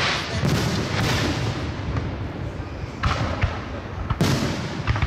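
Aerial firework shells bursting overhead: about four sharp booms, each trailing off in echo.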